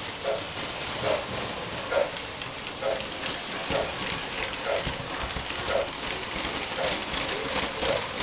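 O-gauge model trains running on three-rail track: a steady rattle of metal wheels on the rails, with a soft pulse repeating about once a second.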